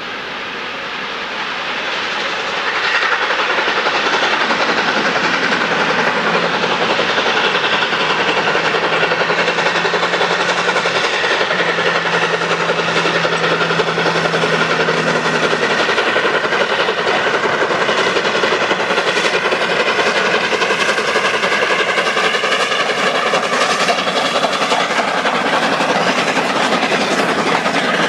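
LNER A4 Pacific 4464 Bittern, a three-cylinder steam locomotive, working hard up a gradient with a train of coaches: its exhaust and the rolling train grow louder about three seconds in and then hold steady.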